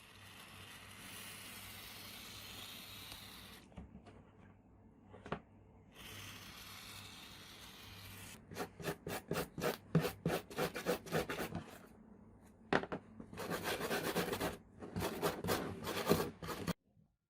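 Hand rubbing and scraping, as in abrasive work on a rusty part: first a steady stretch of rubbing, then quick back-and-forth strokes, about three or four a second, that stop and start again near the end.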